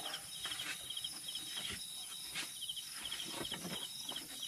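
Crickets chirping in short rhythmic pulses over a steady high insect trill. Now and then comes a light clink or knock from serving utensils in a metal pan.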